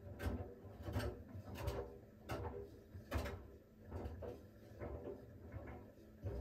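Siemens iQ700 front-loading washing machine drum turning in the steam stage of its smartFinish programme, a shirt tumbling and dropping inside it with soft thuds and swishes a little more than once a second over a low steady hum.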